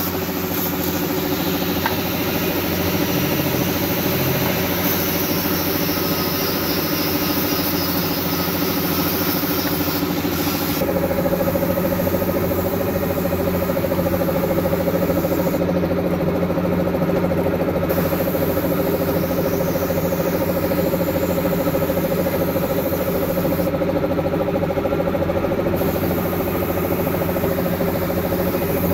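Electric machine motor running steadily with a continuous whine; about eleven seconds in the whine shifts and grows stronger, then holds.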